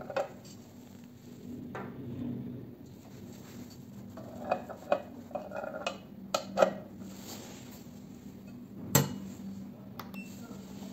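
Scattered light clicks and clinks of a liquid sample being fitted into a desktop spectrophotometer's transmission sample holder, clustered in the middle, with one sharper knock near the end.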